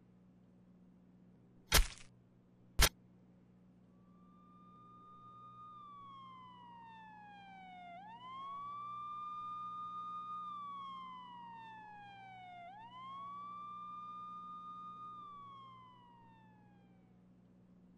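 Two sharp bangs about a second apart, then a police siren wailing, its pitch sliding slowly down and sweeping quickly back up twice as it fades in and then away.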